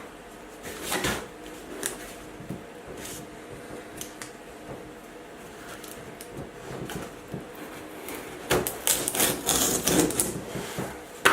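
Retail product packaging being handled and pried at by hand: scattered clicks and rustles about a second in, then a dense run of crackling and clicking near the end as the packaging resists being opened.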